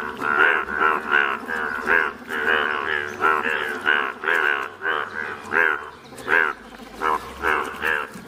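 Breeding chorus of Indian bullfrogs, many males calling at once: short, loud, overlapping calls, about two a second.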